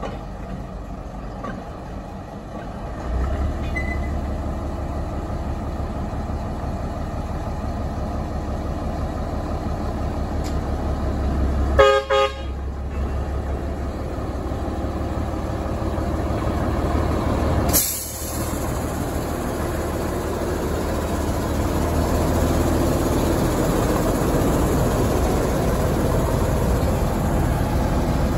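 Small diesel shunting locomotive's engine running, its low rumble rising about three seconds in as it works hauling a brake van, with a short horn toot about twelve seconds in and a sudden break near eighteen seconds before the running sound carries on.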